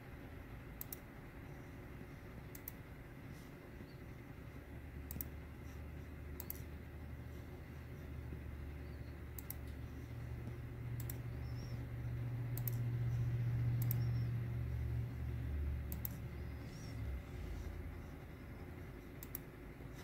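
Single computer clicks, about a dozen, spaced a second or more apart as on-screen menu items are selected. A low hum rises under them from about 7 seconds in, is loudest around 14 seconds and cuts off suddenly near 17 seconds.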